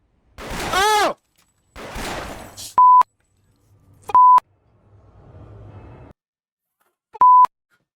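A loud drawn-out vocal exclamation that rises and falls in pitch, then short bits of voice cut by three brief, steady, high beeps of the kind used to bleep out swearing.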